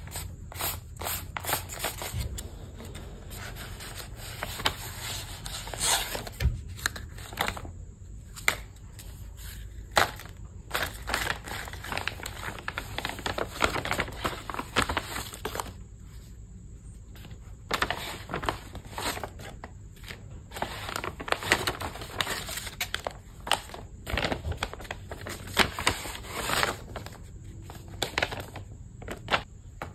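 Crinkly wrapping material being handled and crumpled, crinkling and rustling in short irregular bursts with sharp little clicks.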